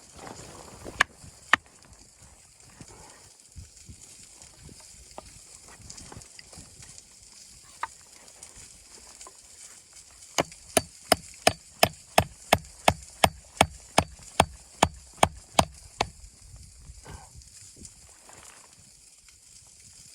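Wood being chopped with a hatchet: two sharp strikes about a second in, one more midway, then a fast, even run of about sixteen blows, some three a second.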